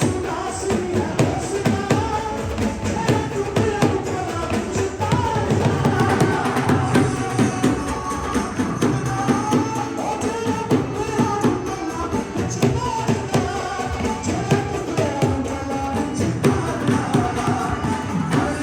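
Live worship music with singing over a steady drum and percussion beat.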